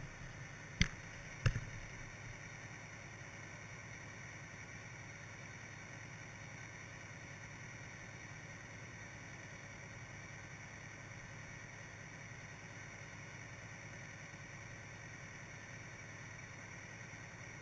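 Steady, faint hiss and rumble picked up by a GoPro in its waterproof housing on the sea floor. About a second in come two sharp clicks or knocks less than a second apart.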